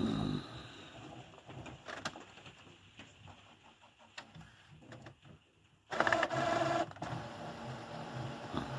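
Epson Expression Premium XP-6000 inkjet printer working: a loud motor whir at the start, quieter clicks and whirring, another loud motor run about six seconds in, then a steady pulsing whir. The printer is starting the second copy of a photo print, on a machine with a troublesome photo paper feed.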